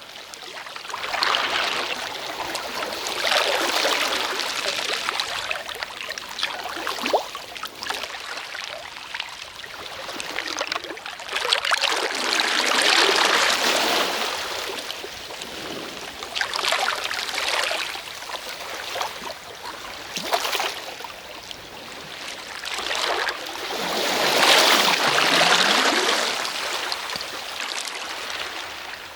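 Waves washing onto a shore, the wash swelling and fading in surges several seconds apart, with trickling water between; the biggest surges come about halfway through and near the end.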